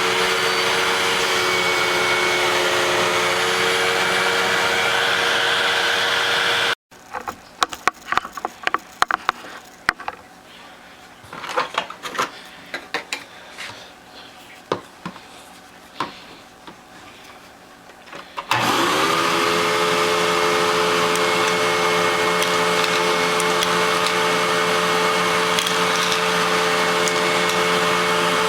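Vacuum cleaner motor running steadily, then cut off abruptly about seven seconds in. For about ten seconds there are only scattered clicks and knocks, then the motor starts again, its whine rising as it spins up, and runs steadily.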